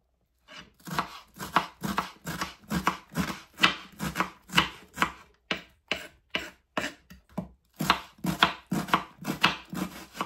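Knife chopping red onion, a steady run of sharp strokes at about two a second, softer for a couple of seconds in the middle.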